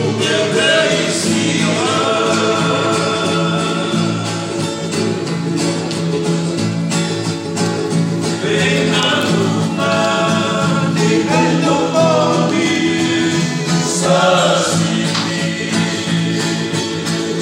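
Sigidrigi, Fijian string-band music: several voices singing together over a strummed acoustic guitar.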